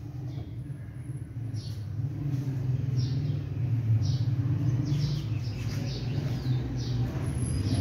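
Changan Alsvin's petrol engine idling with a steady low hum that grows gradually louder, with short high bird chirps about once a second over it.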